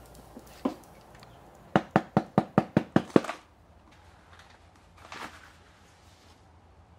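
About eight quick, sharp knocks on timber, roughly six a second, then a short, fainter scuffing noise about two seconds later.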